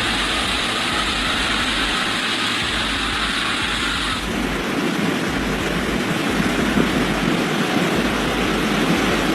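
Steady rushing noise of storm wind, buffeting the microphone with uneven low rumbles. About four seconds in, the hiss turns duller and lower.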